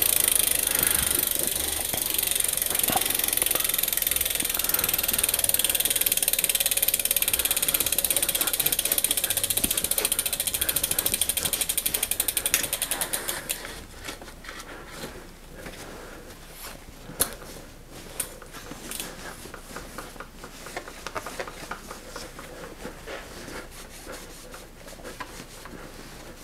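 Trek 7.2 FX bicycle drivetrain turned by hand: the chain runs over the 8-speed rear cassette with fast ticking from the rear freehub. It stops about thirteen seconds in, and then a rag rubs on the chain and frame with scattered light clicks.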